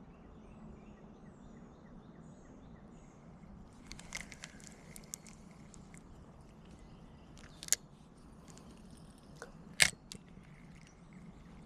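Quiet outdoor background with scattered rustling and a few sharp clicks, the loudest about ten seconds in.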